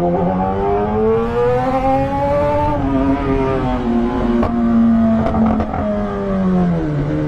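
Kawasaki ZX-10R sport bike's inline-four engine under way. The revs climb for nearly three seconds, drop back and hold steady, then fall away near the end as the bike slows.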